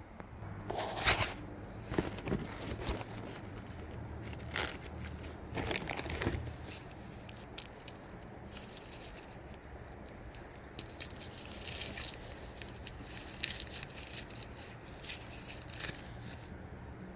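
Crinkling and rustling of packaging with scattered small clicks and knocks as rough stone slabs are unwrapped and handled.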